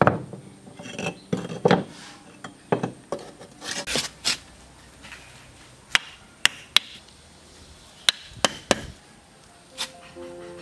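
Fired clay bricks being laid on a concrete floor: scraping and shuffling of brick on brick and concrete, then several sharp knocks in the second half as the bricks are set and tapped into place.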